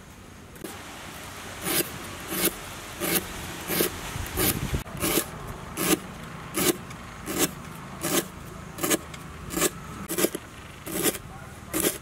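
Repeated short scraping strokes at an even pace, about one and a half a second, over a steady low background noise.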